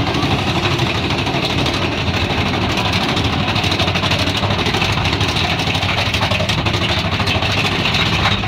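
Big Thunder Mountain Railroad mine train being hauled up its chain lift hill: a steady, rapid mechanical clatter and rattle over a low rumble.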